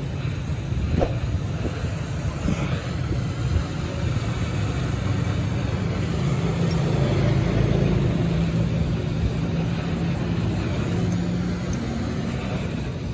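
Steady low mechanical rumble with a faint hum, with a couple of faint ticks in the first few seconds.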